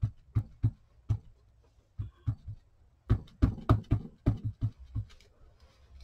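Ink pad being tapped repeatedly onto a clear rubber stamp held in a stamping platform: a run of short, dull taps at an uneven pace, with a brief pause about a second and a half in.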